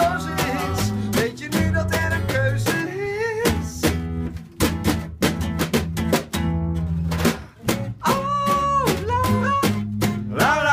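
Acoustic guitars strummed in a quick, even rhythm over a bass line, with male singing in places.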